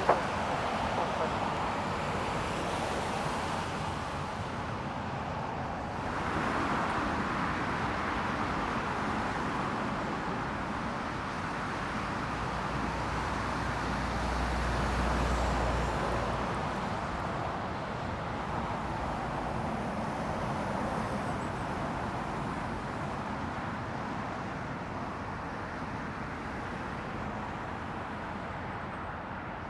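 Jet airliner engine noise at the runway: a steady wide rumble that swells a little twice and then slowly fades away.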